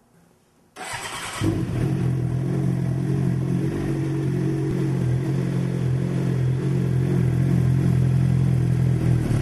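2007 Suzuki GSX-R600 inline-four with a Yoshimura R55 full exhaust system started: a brief burst of cranking about a second in, then the engine catches and settles into a steady idle at about 1,300 rpm.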